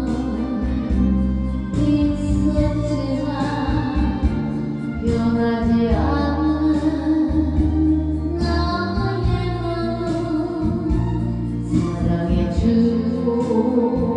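Korean trot song: a woman singing a plaintive melody over a band backing.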